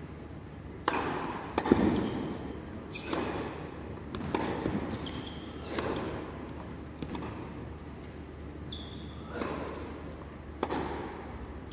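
Tennis ball struck back and forth with rackets, each stroke a sharp pop that echoes around a large indoor arena, roughly one every one and a half seconds.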